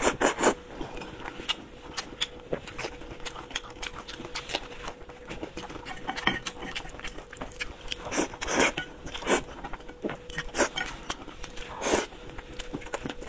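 Close-miked eating of spicy instant noodles: slurping and chewing, with chopsticks clicking and scraping on the plate, and a few louder mouth sounds spread through.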